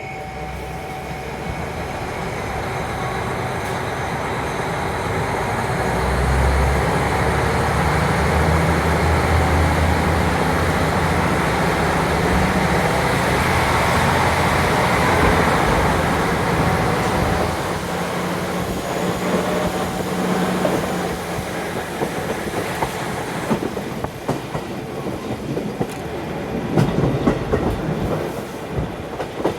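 JR Hokkaido KiHa 40 diesel railcar heard from inside the car with a window open, mixed with wind noise. Its engine runs under load from about six seconds in and drops away after about seventeen seconds. After that the wheels are heard clicking over the rail joints as the car rolls on.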